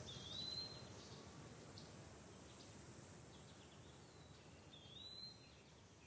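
Faint outdoor ambience fading out, with a bird's short whistled note, dipping then rising, heard twice about four and a half seconds apart.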